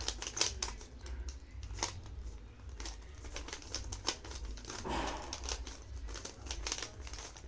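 Rubik's cube being turned by hand: a quick, irregular run of plastic clicks and clacks as the layers are rotated.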